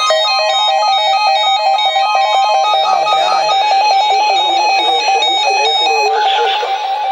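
Weather alert radios sounding their electronic alarms for a Child Abduction Emergency alert: several overlapping warbles, each jumping rapidly back and forth between two pitches. A higher set of tones stops near the end.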